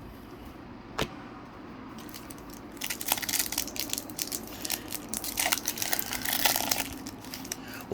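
Foil wrapper of a Pokémon booster pack crinkling and tearing as it is opened by hand, after a quiet start with a single click about a second in.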